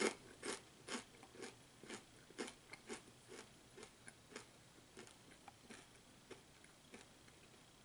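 A person chewing a kettle-cooked potato chip with the mouth closed: faint, regular crunches about twice a second that fade as the chip is chewed down.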